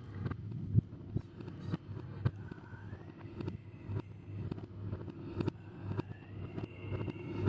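Ghost-howl sound effect: a thin wailing tone that glides upward, then holds, over a steady low hum, with frequent sharp crackling clicks throughout.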